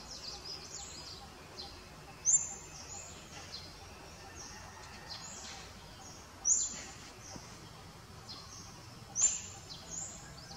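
Birds chirping: a steady run of short, high chirps, with three louder, sharp calls about four seconds apart.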